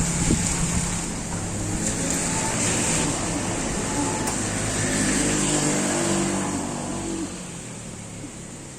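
A motor vehicle engine running and going by, its pitch shifting a little, louder toward the middle and fading out near the end, over a steady hiss.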